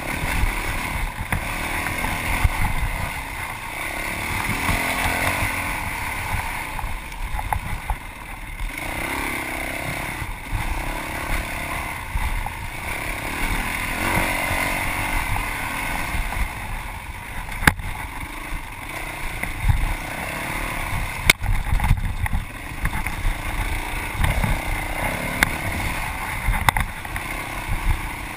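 Yamaha WR450F's single-cylinder four-stroke engine revving up and down as the dirt bike is ridden hard over an off-road course, with two sharp knocks in the second half.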